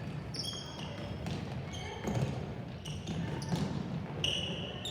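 Game play on an indoor court: several short, high shoe squeaks on the floor and ball thuds over a steady murmur of background voices in a large hall.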